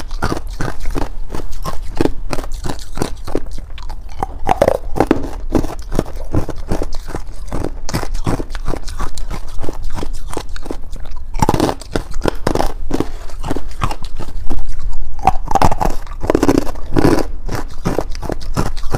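A person crunching and chewing buckwheat ice and frost ice, with rapid crisp bites several times a second. Louder chomps come about twelve and again about sixteen seconds in.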